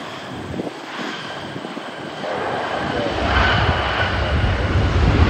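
Jet airliner's engines with a steady high whine over a hiss, growing louder throughout, and a deep rumble setting in about three seconds in.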